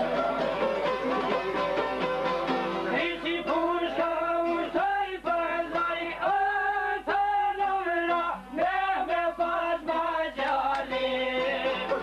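Albanian folk music played live on the çifteli, a plucked two-string long-necked lute. A man's singing voice joins about three seconds in, in long held phrases over the plucked accompaniment.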